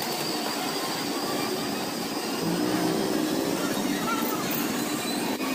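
Street traffic running steadily, with people's voices faintly in the background.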